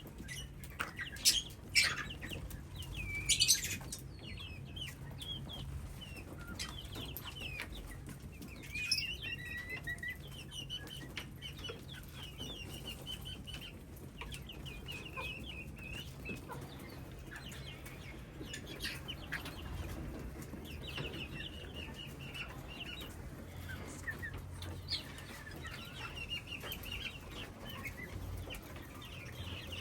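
A colony of small parrots chirping with short high calls throughout, with loud bursts of wing flapping about one to four seconds in and again near nine seconds.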